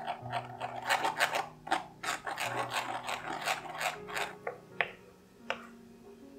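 Wooden spoon scraping and pressing cooked strawberry puree through a fine stainless-steel mesh sieve, a quick run of rasping strokes. Near the end come a few separate light taps.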